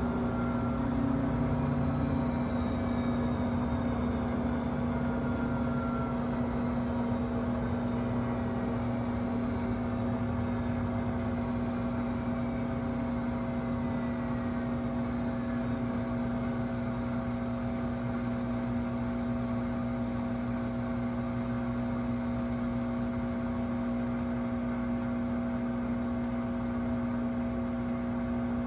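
Samsung WW25B6900AW front-load washer buzzing steadily: a strong low hum with fainter higher tones over it. The owner finds the washer makes this loud buzz when it runs with no water left to drain.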